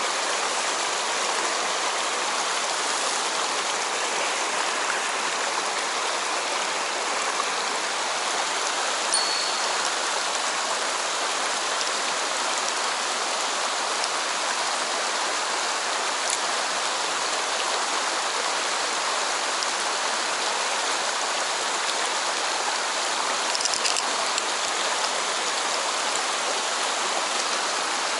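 Mountain stream water rushing steadily, an even, unbroken wash of noise.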